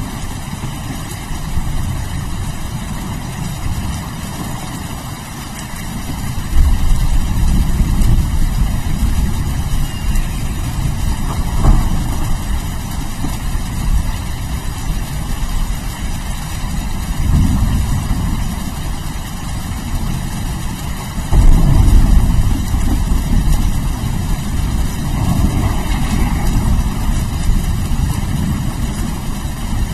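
Steady rain with low, rolling thunder. Two louder rolls of thunder break in suddenly, about six seconds in and again about twenty-one seconds in, each dying away over several seconds.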